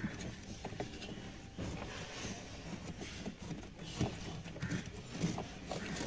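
Faint rubbing and small clicks of a finger scraping debris out of a washing machine's plastic drain valve outlet pipe.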